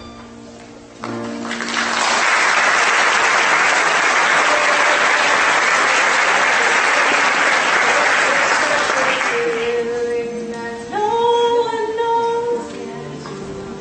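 Audience applauding for about eight seconds, starting just after the last notes of a piece of music fade; near the end the applause dies away as music with held melodic notes begins.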